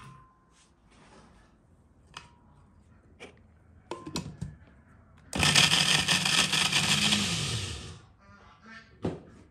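Electric countertop blender running for about two and a half seconds, grinding bread chunks into crumbs, its motor then winding down in pitch. Before it, a few light knocks against the glass jug as the bread goes in.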